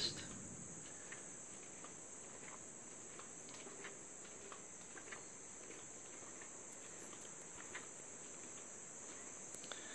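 Steady, high-pitched chorus of insects, with a few faint scattered ticks.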